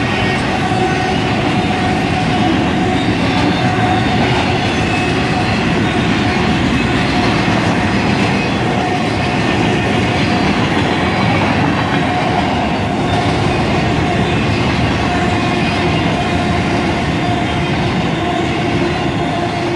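BNSF intermodal freight train's flatcars, loaded with truck trailers, rolling past at speed: a loud, steady rumble and clatter of steel wheels on rail.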